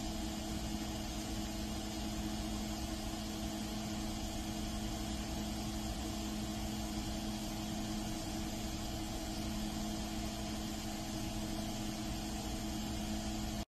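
A steady machine hum over a broad hiss, unchanging throughout, that cuts off suddenly near the end.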